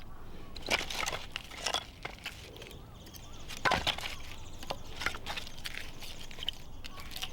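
Dry wood cracking and snapping in irregular sharp cracks, the loudest about a second in and again near the middle.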